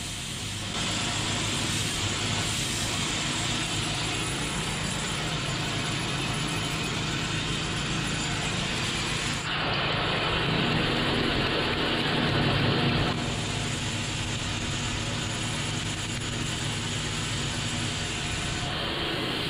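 Homemade stone-dressing machine running: a small Honda petrol engine belt-drives a shaft of 125 mm angle-grinder discs grinding into a block of red stone under water spray. The grinding gets louder and harsher for a few seconds about halfway through as the discs bite deeper.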